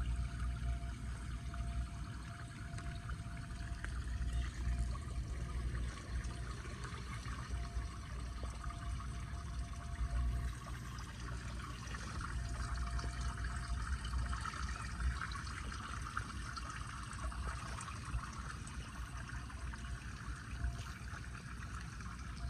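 Floodwater pouring and trickling steadily into a street storm drain.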